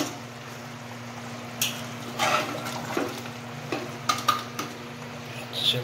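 Metal slotted spatula stirring thick mutton curry in an aluminium pot, giving a string of separate scrapes and clinks against the pot's side over a steady low hum.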